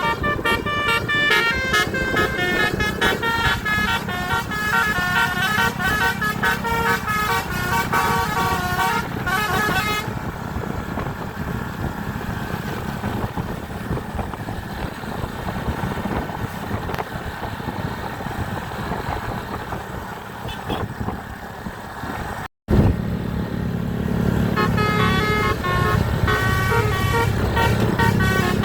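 Bus 'basuri' telolet horn playing a quick melody of rapidly changing notes over vehicle and road noise. The melody stops about ten seconds in, leaving the steady rumble. After a short break, the horn tune starts again near the end.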